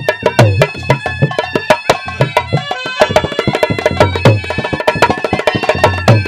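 Instrumental passage of Haryanvi ragni folk music: fast hand-drum strokes, some deep ones bending in pitch, over sustained melodic reed tones, the sound getting fuller about three seconds in.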